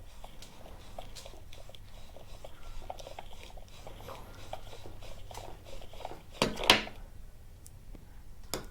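Light clicks and knocks of a Stihl string trimmer's shaft and housing being worked apart by hand, with one louder scraping clatter about six and a half seconds in.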